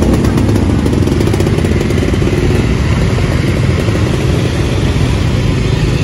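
Dense street traffic of motorcycles and cars crawling in a jam, small motorbike engines running close by in a loud, steady din.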